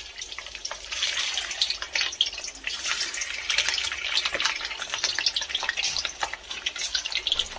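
Cut soya chaap pieces frying in hot oil in a kadhai, sizzling with a dense, steady crackle of spatters.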